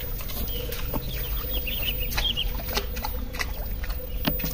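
Chickens clucking, with groups of short, high chirping calls repeated through the middle, over a few sharp clicks.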